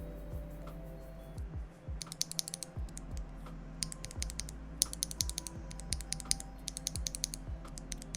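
Typing on a Tofu65 mechanical keyboard fitted with Banana Split linear switches on a brass plate: quick runs of keystrokes in bursts, starting about two seconds in.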